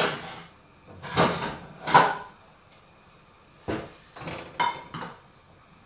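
Kitchen cupboard and cookware being handled: a series of separate knocks and clatters as a small pan is taken out and moved about, a couple of them ringing briefly.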